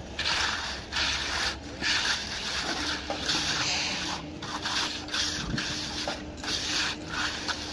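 Steel hand trowels scraping and smoothing wet concrete in repeated swishing strokes, roughly one a second. A faint steady hum joins about three seconds in.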